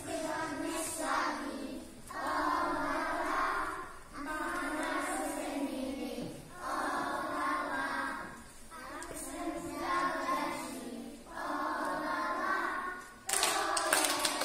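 A group of young children singing a song together without accompaniment, in phrases of about two seconds with short breaths between them. About a second before the end, the song stops and applause breaks out.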